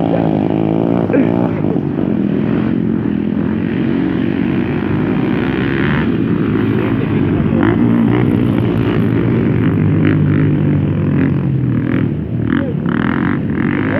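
Motocross bike engines running and revving. Their pitch rises and falls with the throttle, and more than one engine can be heard at once.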